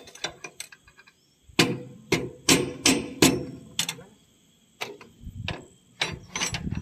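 Metal hand tools clanking against metal: a dozen or so sharp, irregular knocks, loudest in the middle, with a short lull about four seconds in.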